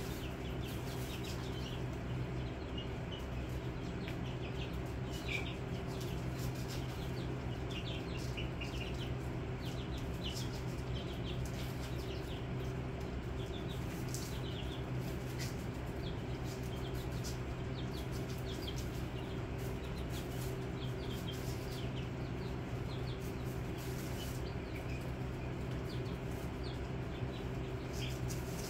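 Young chicken chicks peeping, many short high chirps scattered throughout, over a continuous low hum. A few brief clicks break in now and then.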